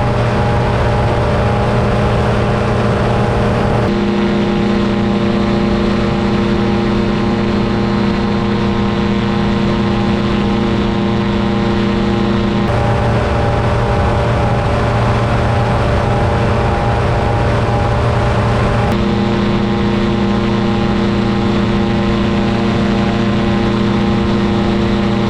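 Paramotor engine and propeller running steadily at cruise throttle, loud and unbroken; its pitch steps abruptly a few times.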